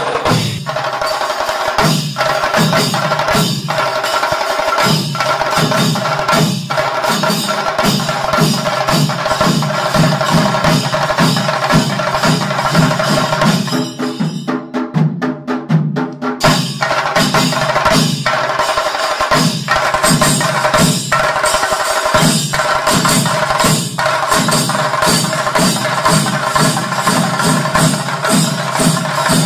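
Ensemble of chende drums, Kerala-style cylindrical drums beaten with sticks, playing a fast continuous rolling rhythm. Louder accented strokes come about every second and a half.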